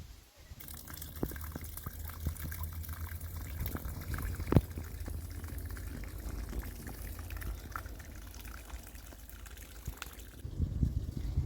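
Water pouring and splashing, with many small drips and clicks and one sharp knock about four and a half seconds in. It starts and stops abruptly.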